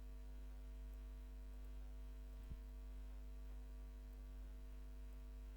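Steady electrical mains hum with a stack of harmonics, picked up by the recording, with one brief faint click about two and a half seconds in.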